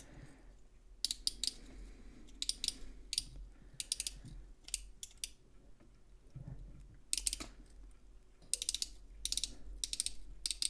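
Copal 225 flip clock mechanism turned by hand, its plastic number flaps dropping in short bursts of quick clicks as the minutes run forward, with the ratcheting of the mechanism's slip clutch.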